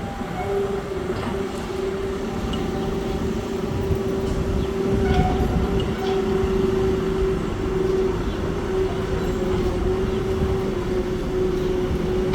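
Construction machinery running steadily: a constant mid-pitched hum over a low rumble, with a few faint clicks and knocks.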